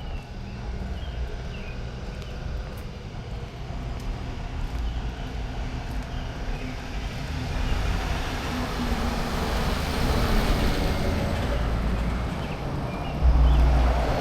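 A car passing on the street, its tyre and engine noise swelling over several seconds and then easing. A sudden loud low rumble comes near the end.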